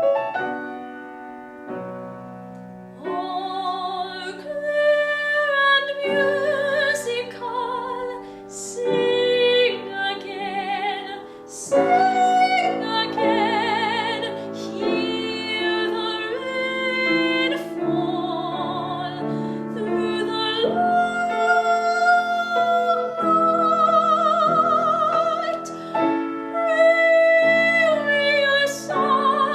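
A woman singing a classical art song with vibrato, accompanied by piano. The piano plays alone for the first few seconds before the voice comes in.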